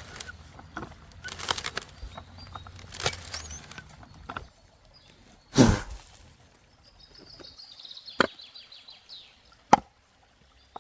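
Scattered wooden knocks and clatter, with one heavy thump about halfway through and two sharp knocks near the end. A quick, high, downward-sliding trill, like a bird's, sounds in the second half.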